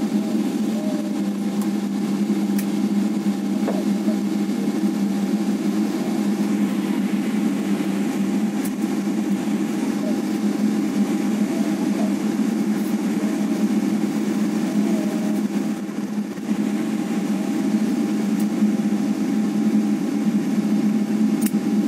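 Steady drone inside an airliner cabin as the plane taxis: engines at low thrust and cabin air, with a constant hum, and faint voices in the background.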